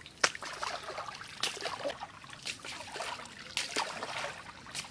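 Pond water splashing and sloshing as a large scaled chitol fish is swished back and forth in it to rinse it, a splash about once a second, the first one loudest.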